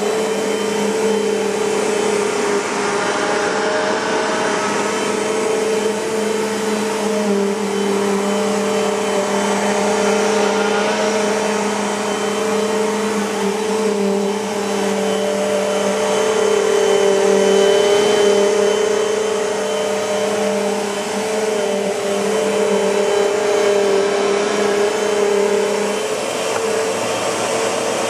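Bissell PowerForce Compact bagless upright vacuum cleaner running steadily, its motor giving a constant whine over the airflow rush, with slight swells in loudness.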